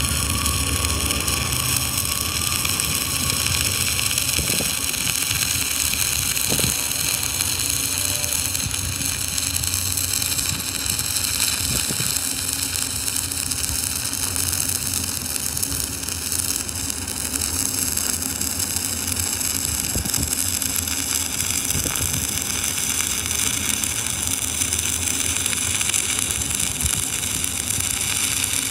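Stick-welding arc of a 3/32-inch 7014 electrode burning continuously as a bead is run, a steady crackling sizzle with scattered pops. The rod is run on DCEN (electrode negative).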